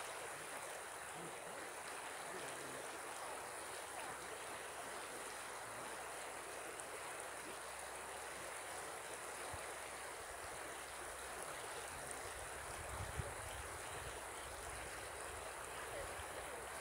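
River water flowing, a steady even rush, with a brief low rumble about three-quarters of the way through.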